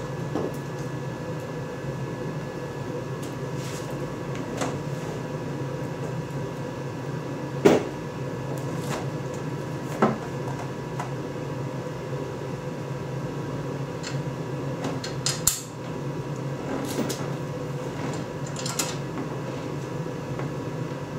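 A few sharp clicks and knocks of parts and fasteners being handled while a side-by-side's lower door panel is fitted, the loudest about a third of the way in, over a steady hum.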